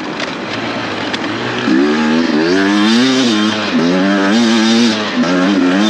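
Dirt bike engine under racing throttle, its pitch rising and falling several times as the revs climb and drop.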